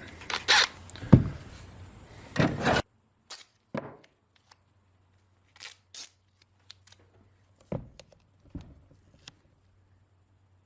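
Handling noise from the broken lawn sweeper wheel and its repair bracket being positioned by hand: a run of knocks and clicks that stops abruptly a little under three seconds in. After that come only a few faint scattered clicks and taps.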